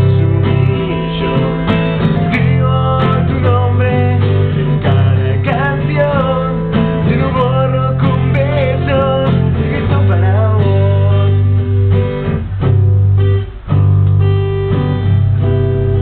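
Acoustic guitar strummed and picked in chords, with a man's voice singing over it through the first part. The playing breaks off for a moment about thirteen seconds in, then carries on.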